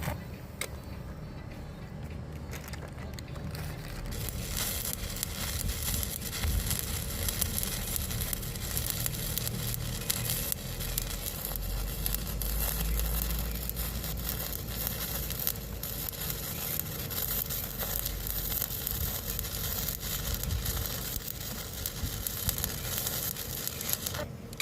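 Stick arc welding on a 10-inch steel pipe joint: the arc gives off a steady, dense crackle, which grows fuller about four seconds in.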